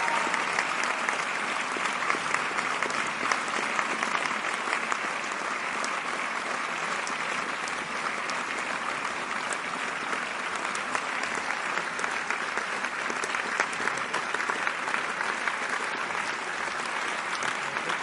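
Theatre audience applauding: dense, steady clapping of many hands.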